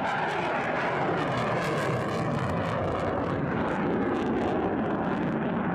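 F-15J Eagle's twin turbofan jet engines: a loud, steady jet noise with no breaks.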